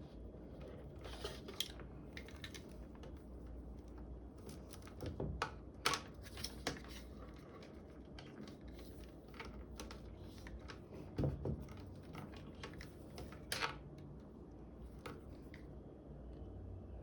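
Scattered clicks, taps and rustles of packaging and objects being handled during an unboxing, with a few louder knocks near the middle.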